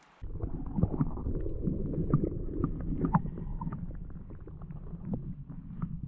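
Muffled underwater sound of a creek picked up by a submerged camera: a steady low rumble of moving water with many small scattered clicks and taps.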